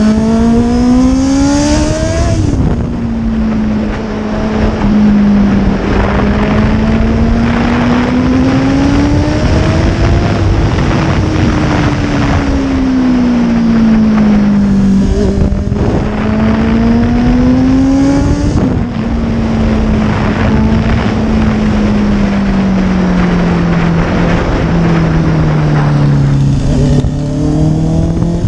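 Honda CBR650R inline-four sport bike engine and exhaust under way, the revs climbing and falling as the rider accelerates and eases off. There are two sharp drops in pitch at upshifts, about two seconds in and again past halfway. Wind rushes over the microphone throughout.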